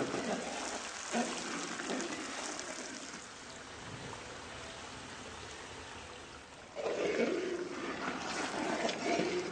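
Egg curry simmering in a karahi, a steady sizzling and bubbling hiss that grows louder and busier about seven seconds in.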